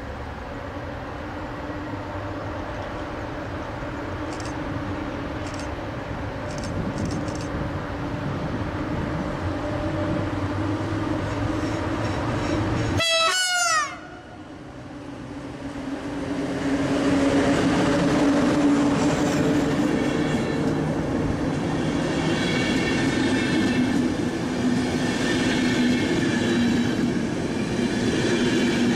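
PKP Intercity electric locomotive approaching with a steady hum, growing louder. About 13 seconds in there is a short horn blast that falls in pitch as the locomotive passes. Then its passenger coaches roll past, louder and steady, with wheels clattering over the rail joints.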